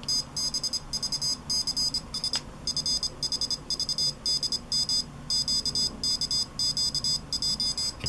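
Piezo buzzer on a home-built Arduino Morse code keyer sounding Morse characters at a raised speed. A high-pitched beep is keyed on and off in quick dots and dashes, with short pauses between characters.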